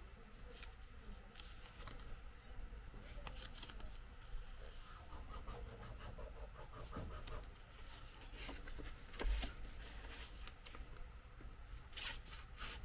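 A sheet of origami paper being handled and folded: faint, scattered crinkling, rustling and creasing strokes, with a few louder clusters and a soft bump on the table about nine seconds in.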